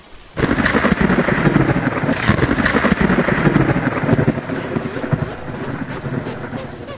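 Loud rushing, rumbling noise with no clear pitch. It starts suddenly about half a second in and eases off slightly near the end.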